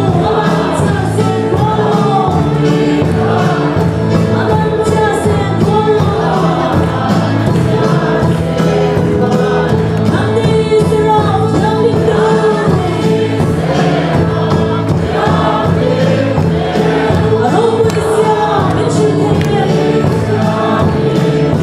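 A church congregation singing a worship song together, loud and continuous.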